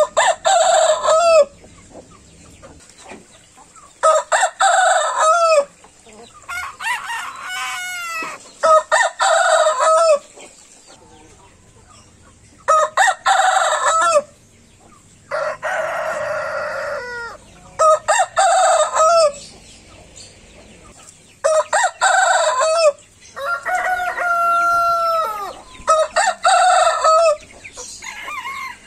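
Roosters crowing one after another: about ten crows of one to two seconds each, separated by short gaps.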